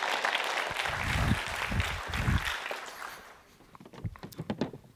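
Audience applauding, dying away about three seconds in, followed by a few footsteps on the stage.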